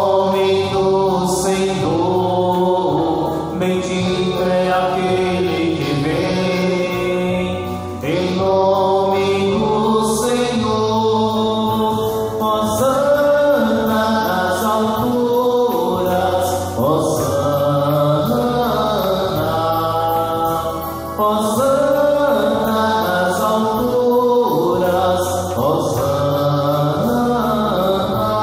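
A man singing a hymn into a microphone to electronic keyboard accompaniment, the keyboard holding steady chords that change every second or two under the voice.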